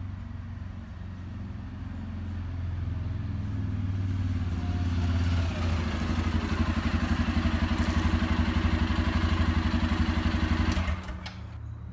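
Engine of a four-wheeler ATV, running louder and louder as it rides up and pulls alongside. Its engine sound then drops off suddenly near the end.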